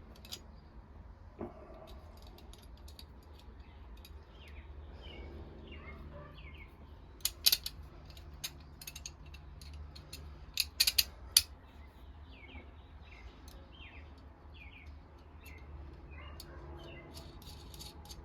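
Sharp metallic clicks and clinks of bolts and a knife bevel jig being handled and fitted, in a cluster about seven seconds in and another about eleven seconds in, over a steady low hum. Short high chirps repeat through the middle.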